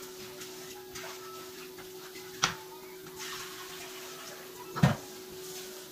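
Two short knocks of a plastic rice paddle against a ceramic plate while scooping cooked rice, the second one louder, over a steady low kitchen hum.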